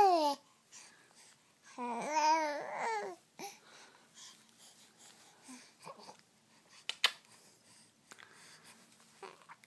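Two-month-old baby cooing: the tail of one wavering, vowel-like coo at the start, then a second coo about two seconds in, rising and falling in pitch for about a second. After that only small soft sounds, with a short click near seven seconds.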